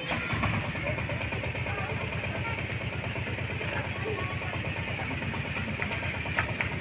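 An engine running steadily at idle, with an even low pulse, amid faint background voices.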